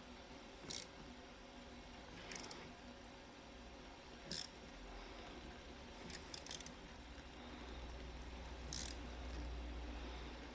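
Short metallic clicks about every two seconds as a 12 mm wrench turns the forcing screw of a small bearing puller drawing the rotor bearing off an angle grinder's armature. A faint low rumble comes in during the second half.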